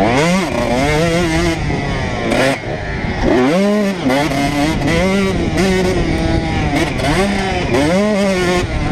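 Honda CR125's two-stroke single-cylinder engine under hard riding, its pitch climbing and dropping back again and again as the throttle is worked and gears change.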